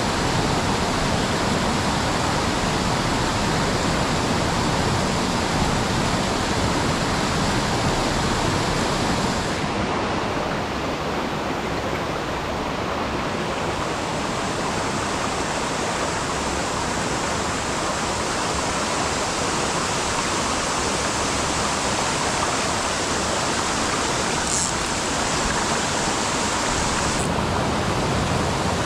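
Mountain stream rushing, a steady wash of water noise. The sound turns a little duller from about ten seconds in until near the end.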